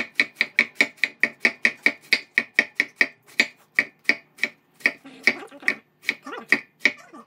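A cabbage-shredding knife slicing half a cabbage into fine strips on a wooden cutting board: quick, even chopping strokes, about five a second, that slow and grow sparser after about four seconds.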